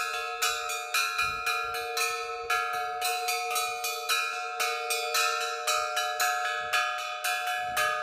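Orthodox festive peal rung by hand on a set of improvised bells made from hanging metal cylinders, struck by rope-pulled clappers. Quick strikes about three a second over a steady ringing tone, several pitches sounding together.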